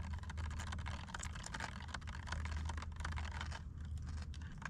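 Food crackling and spitting in a frying pan on a portable gas stove: a dense, continuous patter of tiny pops over a steady low hum.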